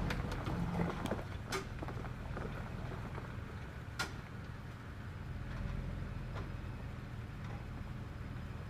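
Toyota 4Runner engine running low and steady as it crawls down a rough off-road trail, with a few clicks and a sharp knock about four seconds in.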